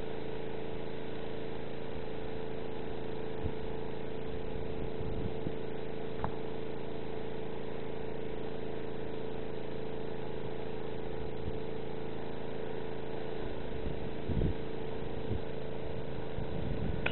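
Steady motor hum with several held tones, at an even level throughout, and a few brief knocks.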